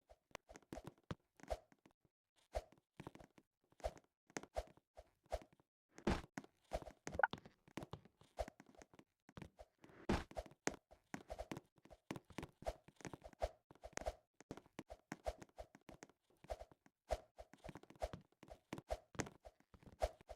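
A long irregular series of short, sharp taps and clicks, several a second, some with a brief hollow ring to them.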